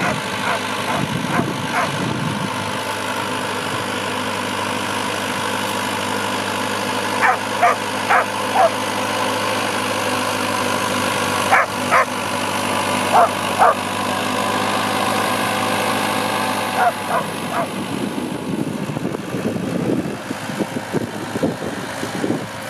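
Dog barking in short bursts of two to four barks over the steady running of a Fortschritt ZT tractor's diesel engine.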